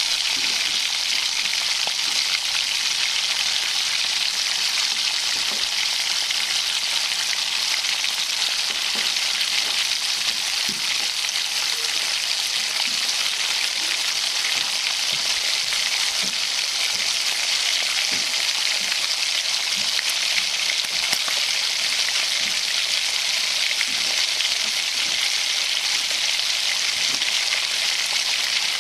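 Food frying in hot oil in a pan: a steady, dense sizzle and crackle.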